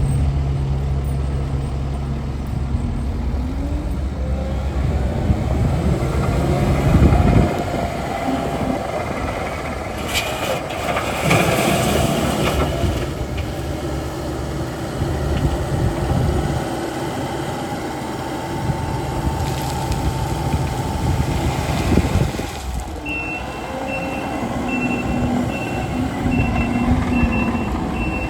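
Takeuchi TL10V2 skid steer's diesel engine running as the machine is worked, its pitch changing several times, with louder high-pitched noise about ten and twenty seconds in. In the last five seconds a backup alarm beeps steadily as the machine reverses.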